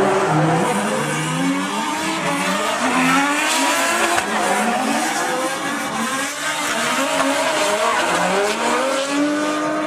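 Two drift cars' engines revving hard at high rpm, their pitch repeatedly climbing and dropping as the throttle is worked through a tandem drift. Rear tyres spin, squealing and hissing, under it all.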